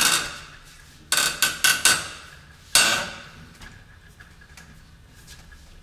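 Headset press tool being cranked down on a scooter's head tube, forcing the headset cups into the frame. A loud creak fades at the start, then four sharp metallic clicks come in quick succession about a second in, followed by one more loud crack near three seconds and then faint ticks.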